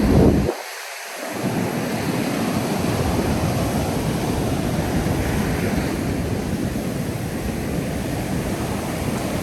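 Ocean surf breaking on a beach as a steady wash, with wind buffeting the microphone. A loud gust at the start is followed by a brief drop-out of the low rumble, which then returns.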